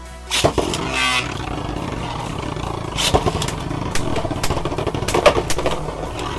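Two 3D-printed Beyblades are launched with a loud rip about half a second in. They then whir steadily as they spin in the stadium, with sharp clacks as they collide, several of them in the second half.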